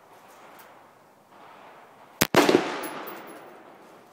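AR-15 rifle gunfire: about two seconds in, two sharp reports a fraction of a second apart, followed by a ringing decay lasting about a second.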